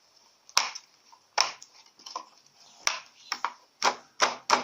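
Play-Doh tools and toys being handled on a hard surface: about eight irregular sharp taps and clicks, coming closer together near the end.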